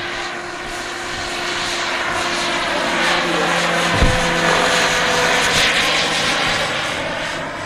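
Radio-controlled scale AS350 Écureuil model helicopter flying past: its steady rotor and drive noise grows louder as it comes close, then fades as it moves away. A brief low thump about four seconds in.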